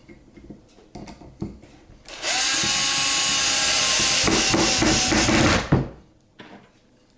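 Power drill driving a screw into the wooden bat box, running for about three and a half seconds: it spins up, its note changes partway through as the screw bites, and it stops abruptly. A few light knocks from handling the timber come before it.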